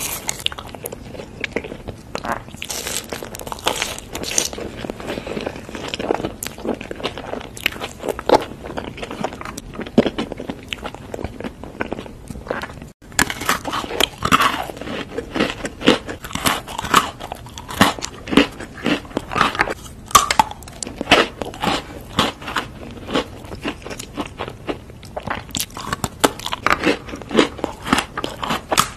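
Close-miked eating: soft chewing of a toasted white dessert, then, after a brief break about halfway, crisp bites and crunching of cookies-and-cream Pepero biscuit sticks.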